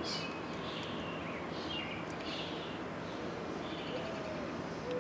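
Small songbirds chirping and trilling in short repeated phrases over steady outdoor background noise, with a low, soft cooing call starting about four seconds in.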